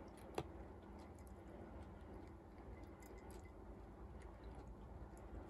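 Cat eating dry kibble from a ceramic bowl: faint crunching and small clicks, with one sharper click about half a second in.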